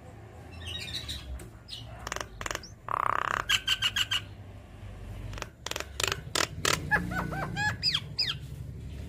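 Javan myna singing a varied song of sharp clicks, a harsh squawk and short whistled notes. A quick run of clipped whistles comes about three and a half seconds in, and a string of hooked whistles comes around seven to eight seconds.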